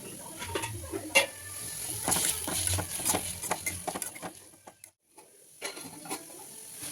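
Kitchen cooking sounds: a metal utensil stirring, scraping and clinking against a pan in a string of quick knocks. The sound cuts out briefly about five seconds in.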